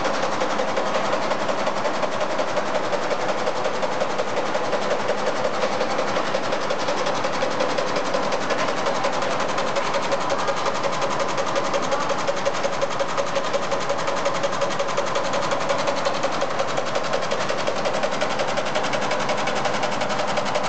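Multi-head industrial embroidery machine stitching steadily, a rapid, even chatter of needle strokes.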